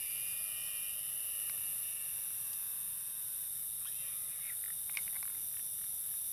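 Steady high-pitched hiss from the thermal riflescope's built-in recorder, with faint high chirping and a few short faint calls about four to five seconds in.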